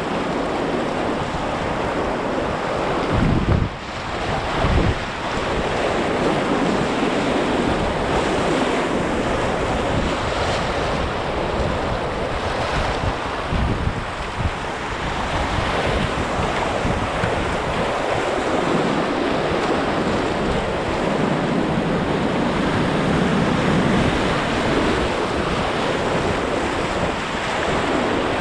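Whitewater rushing steadily through a river rapid, with wind buffeting the microphone. A few low thumps come about three to five seconds in.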